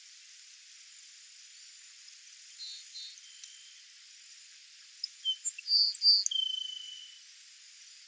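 Grassland sparrow singing: two faint short high notes, then about five seconds in a quick run of short high notes ending in one long, thin, level note. A steady high hiss runs behind it.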